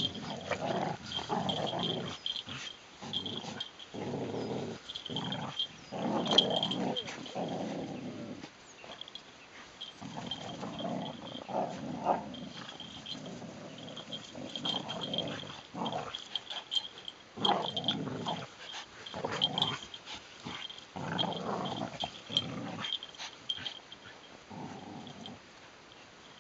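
Border Collies growling playfully during tug-of-war, in rough bouts of a second or two with short breaks between.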